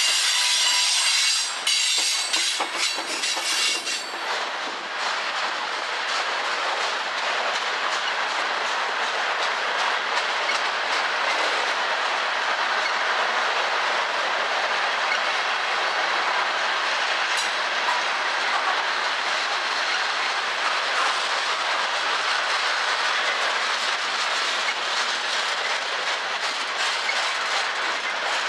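Freight train of covered hopper cars rolling past, its steel wheels clicking over the rail joints with a steady rolling noise. A high-pitched wheel squeal rides over it for the first few seconds, then fades.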